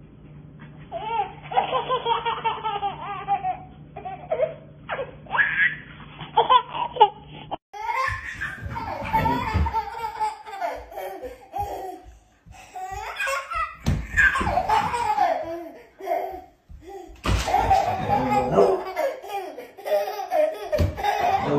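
Small children laughing in repeated bursts: a toddler's giggles, then from about eight seconds in a different baby's laughter.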